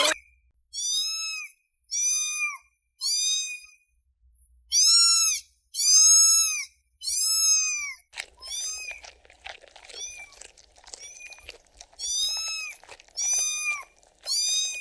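Kittens mewing: a series of high-pitched, crying mews, about one a second, each rising and falling in pitch. From about eight seconds in, a faint rustling noise runs under the calls.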